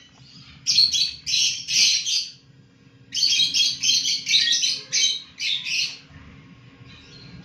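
Lovebirds chattering: runs of rapid, high-pitched chirping calls, one about a second in and a longer one from about three to six seconds in.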